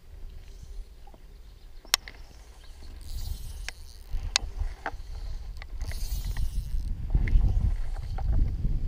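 Low rumble of wind on the microphone, building from a few seconds in and strongest near the end, with scattered sharp clicks and a couple of brief hissy rustles from handling.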